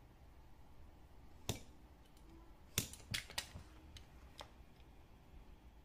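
A handful of sharp clicks and taps from a snap-off utility knife trimming a leather wallet's edge and being laid down on a plastic cutting mat, most of them bunched together about three seconds in.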